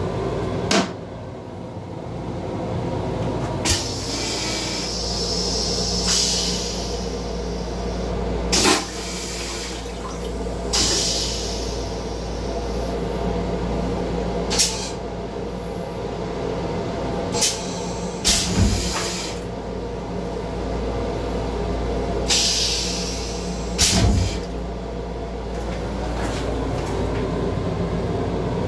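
Steady rumble of a Metro-North M7 commuter railcar running, heard inside its small restroom, with sharp clunks and knocks every few seconds, among them the hinged toilet seat being lifted and dropped back down.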